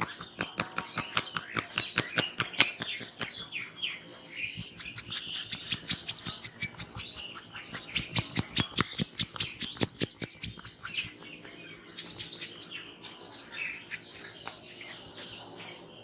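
Rapid rhythmic hand tapping or slapping of massage strokes, about five strikes a second, slowing and stopping a little over ten seconds in. Birds chirp in the background throughout.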